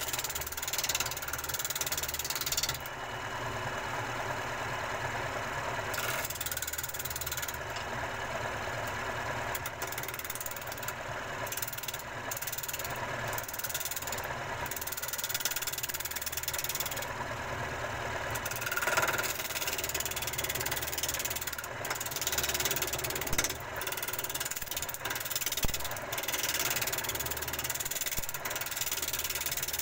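An electric woodworking machine running steadily. Its low motor hum holds throughout, while the higher noise above it cuts in and out every few seconds.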